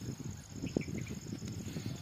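A steady high insect trill over low, irregular rustling and soft bumps from the shade net being handled and pulled through the grass.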